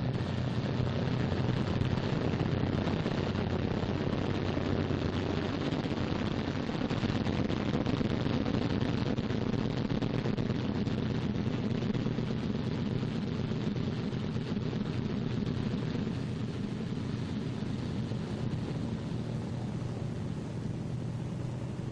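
A Martin B-26 Marauder's twin Pratt & Whitney R-2800 radial engines run as the bomber taxis. It is a steady, heavy engine roar with a noisy hiss over it, easing off slightly toward the end.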